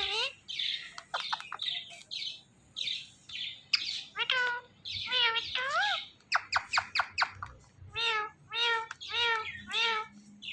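Ring-necked parakeets calling: harsh screeches, then whistled chirps and a quick run of short notes, ending in a string of similar repeated calls about two a second.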